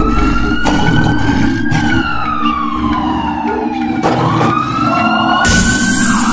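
A siren-like wail sliding slowly up and down in pitch over a low steady drone. A loud rush of hiss cuts in about five and a half seconds in.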